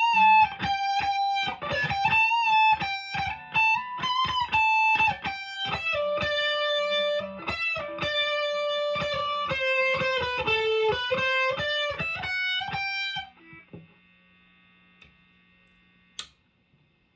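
PRS SE McCarty 594 electric guitar on its coil-split bridge pickup, played through the ultra gain channel of a Marshall DSL-1 amp: a single-note lead line with bent and sustained notes. The playing stops about 13 seconds in, leaving a faint amp hum and one sharp click near the end.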